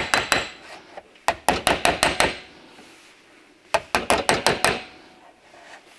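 Steel panel-beating hammer tapping the steel door skin of a Talbot Sunbeam Lotus in quick runs of light, metallic blows, working the pulled dent straighter. There are a few taps at the start, then two runs of about eight taps each, one around one to two seconds in and one around four seconds in.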